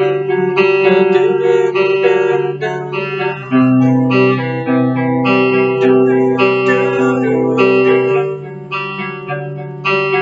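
A guitar picking out a chord pattern note by note, the notes left to ring over a low bass note that changes twice.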